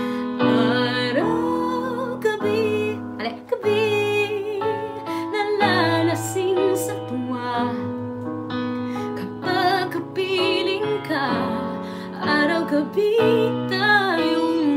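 A woman singing a slow ballad in a strong, held voice with wide vibrato and melodic runs, accompanying herself with piano chords on an electronic keyboard.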